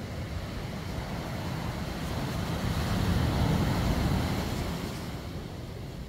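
Ocean surf breaking and washing up a sandy beach as a steady rushing hiss. It swells to its loudest a little past the middle, then eases off.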